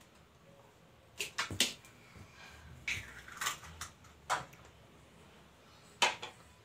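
Short knocks and clicks of kitchenware being handled on a tiled countertop, scattered unevenly, with the loudest knock near the end. No blender motor is running.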